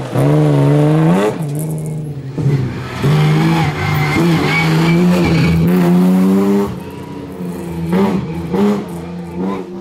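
BMW 325 rally car under hard acceleration, its engine note climbing through the revs with breaks at gear changes. The car is loud through the middle and lower near the end as it pulls away.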